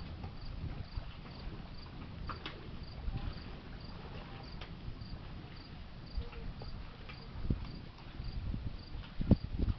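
Crickets chirping steadily, about two short high chirps a second, over a low wind rumble on the microphone, with a few low bumps near the end.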